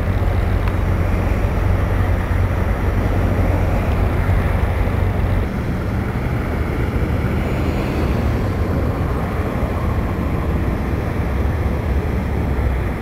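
Cars driving on a rain-wet street: engines running with a steady low hum and tyres on the wet pavement.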